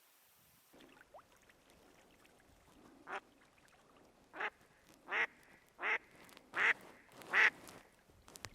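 Live decoy mallard hen quacking: a single quack, then a run of five quacks at an even pace that grow louder.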